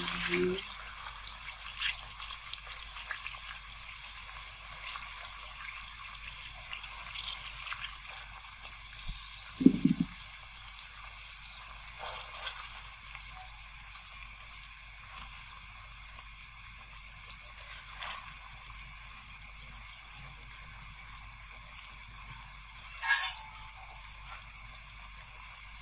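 Stuffed capsicums and keema masala cooking in a pan on a low flame: a soft, steady sizzle, with a short knock about ten seconds in and another brief noise near the end.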